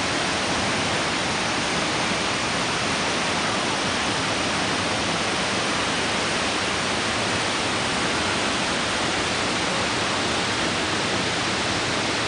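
Steady rush of a waterfall: water pouring down many thin cascades over rock ledges.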